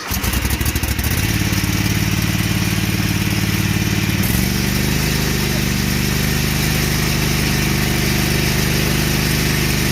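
Riding lawn mower's engine starting up and running loudly: it picks up speed about a second in, shifts pitch slightly about four seconds in, then runs steadily.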